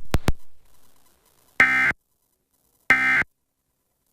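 Emergency Alert System end-of-message data bursts: two short, harsh, buzzy digital tone bursts about a third of a second each and about a second and a quarter apart, marking the close of the EAS test message. A few quick sharp clicks come at the very start.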